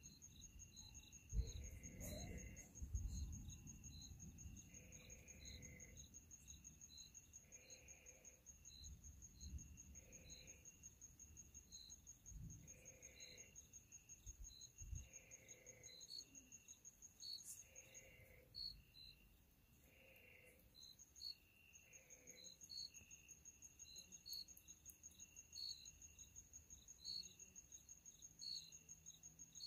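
Faint night insects calling, crickets among them: one steady high trill, with regular short chirps and a lower call repeating every two seconds or so. A few low rumbles come and go in the first few seconds and again around the middle.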